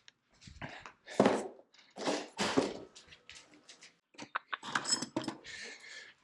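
Bike shipping packaging being handled: scattered rustles, scrapes and knocks, with a quick run of sharp clicks about four seconds in.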